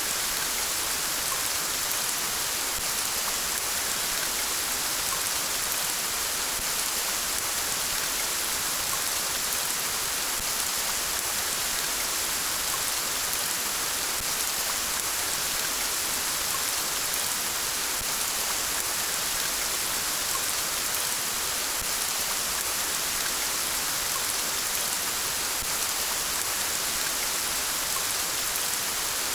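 Steady rain falling, an even unbroken hiss of drops with no thunder.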